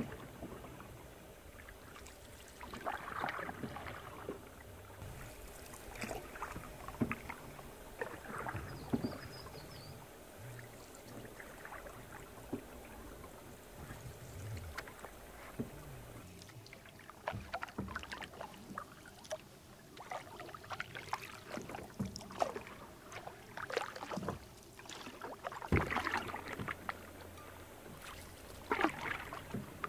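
Canoe paddle strokes in calm lake water: soft, irregular dips, splashes and drips every second or two, with a louder thump near the end.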